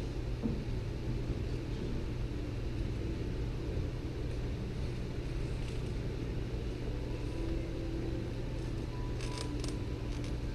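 Steady low hum of a hall's sound system and room noise, with two short clusters of high hissing strokes near the end.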